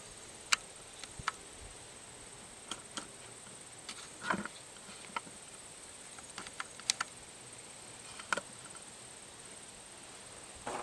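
A dozen or so small sharp clicks and a couple of brief rustles, spaced irregularly, over a faint steady high-pitched whine.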